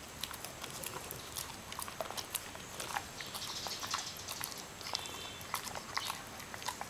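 A Rottweiler chewing a snack while lying down, making irregular wet clicks and smacks of jaws and teeth.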